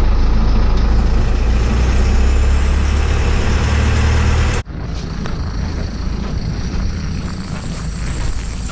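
Delivery step van's engine and road noise heard inside the cab while driving, a steady low drone that cuts off suddenly about halfway through. Then quieter outdoor sound, with steps on a cold, snowy sidewalk.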